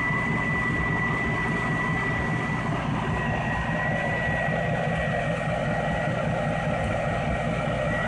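Parked car engines idling steadily: an even low rumble with a thin, steady high-pitched tone running over it.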